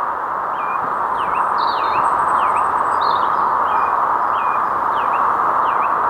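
Steady rush of strong storm wind through trees, with a small bird chirping over it in short dipping notes, about two a second.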